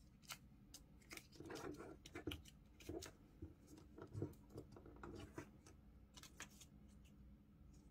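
Faint crisp crinkling and crackling of folded printer paper as fingers pinch and twist it into shape, a dense run of small crackles through the middle that thins out near the end.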